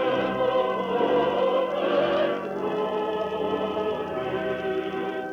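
Choir singing with an orchestra in long held chords, the harmony changing about halfway through, as closing music. It is played from an old 1951 78 rpm shellac record, so the top end is dull.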